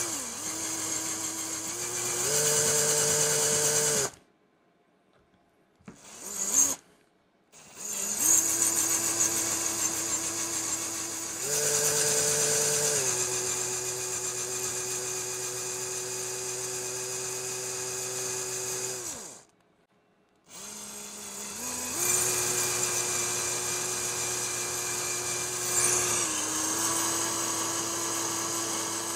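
Electric hand drill running slowly, drilling a pilot hole into the head of a stripped steel Phillips screw with a screw-extractor set's drill bit. The motor whine steps up and down in pitch as the trigger is eased, and it stops briefly three times, about four, seven and nineteen seconds in.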